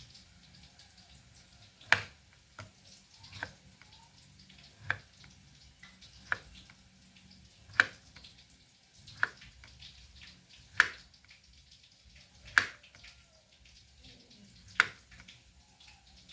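A series of about ten short, sharp taps at an uneven pace, roughly one every one to two seconds, over a quiet room background.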